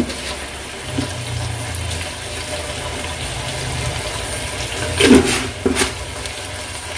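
Mixed vegetables cooking in a non-stick wok: a steady low hum with a faint hiss from the pan. Two brief louder stirring sounds come about five seconds in.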